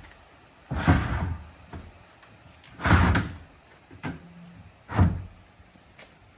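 A plastic 48-gallon holding tank being slid into a steel angle-iron cage: three loud scraping bumps, about two seconds apart.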